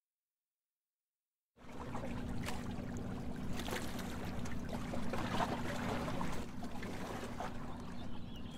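Water lapping and splashing with small trickling crackles over a low steady hum, starting suddenly about one and a half seconds in.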